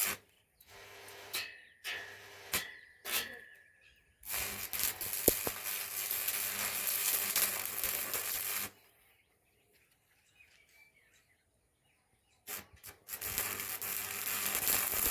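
Stick arc welding: the electrode arc crackles and hisses in two runs, about four seconds and then about three seconds, after a few short stuttering strikes, over the low hum of the welding machine.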